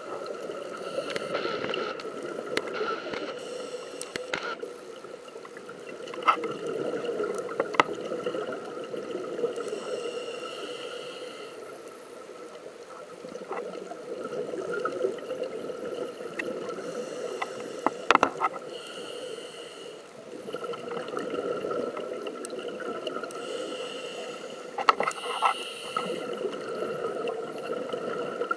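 Underwater sound of a scuba diver's breathing through a regulator: exhaled bubbles gurgling and rushing in slow swells every several seconds, with a few sharp clicks.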